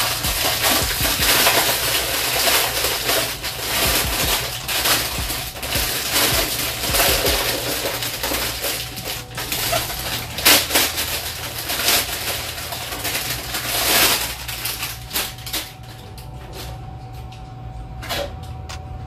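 Clear plastic packaging bag crinkling and rustling as it is handled and pulled open, with many small sharp crackles. It eases to a lighter rustle for the last few seconds.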